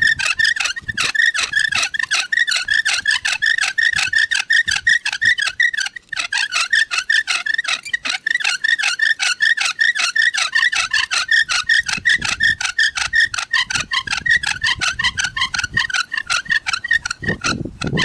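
Wooden friction-fire bow drill: the spindle squeaks and rubs in the fireboard as the bow is sawed back and forth, about four strokes a second. The strokes pause briefly about six seconds in.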